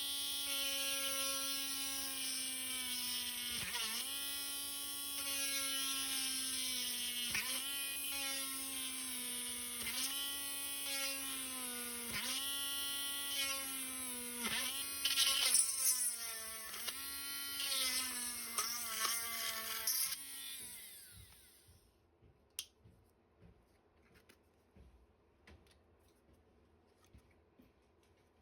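Small handheld power tool cutting away part of an RC motorcycle fairing, its motor whine dipping in pitch every second or two as it bites into the material. It spins down about 20 seconds in, followed by a few faint clicks.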